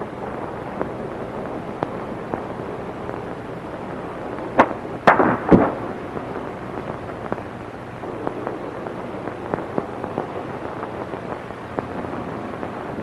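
Steady hiss and crackle of a worn 1940s optical film soundtrack, with three sharper knocks or pops about four and a half to five and a half seconds in.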